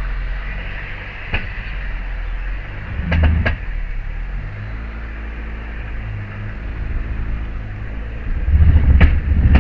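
Honda Fit reversing slowly with its engine running, with a pair of knocks about three seconds in and a loud grinding clunk near the end. The owner thinks the right side is locking up, as if the brakes were dragging.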